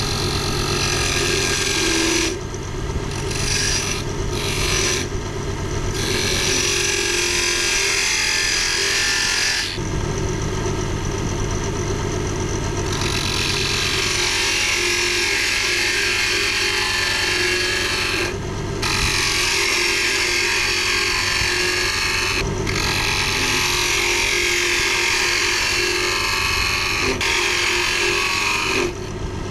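Wood lathe motor running with a steady hum while a hand-held turning tool cuts the spinning wood spindle. The cutting gives a hissing scrape of shavings in long stretches, broken by several short pauses where the tool comes off the wood.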